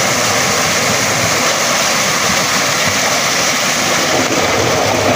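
Tubewell water gushing from the outlet pipe into a concrete tank in a loud, steady rush, with children splashing in the water.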